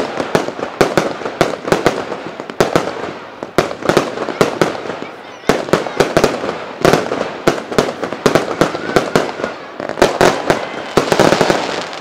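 Aerial fireworks bursting in rapid succession: many sharp bangs in dense clusters with short lulls, and crackling in between.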